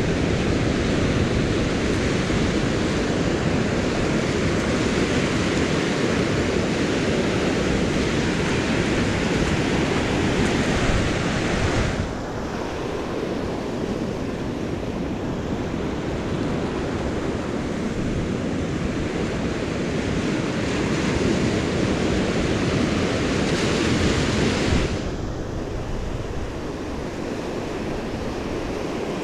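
Surf washing in over the sand, mixed with wind buffeting the microphone: a dense, steady rush of noise. The level steps down suddenly about twelve seconds in and again near the end.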